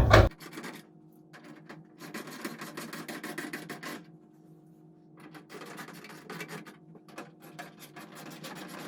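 Hand ratchet clicking in quick runs as screws are snugged down to lightly compress a HEPA filter's gasket, two main runs with a pause of about a second between them.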